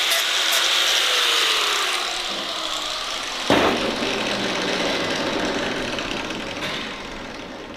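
Angle grinder working the sheet steel of a car door, then released and spinning down with a falling whine. About three and a half seconds in there is a single sharp clunk.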